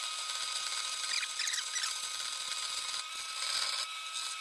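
Metal-cutting bandsaw running with a steady whine as its blade cuts a tight curve in a small steel part, with a few short squeals about a second and a half in.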